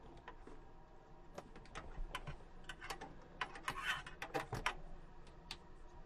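Faint, irregular clicks and taps, coming thickest a little past the middle.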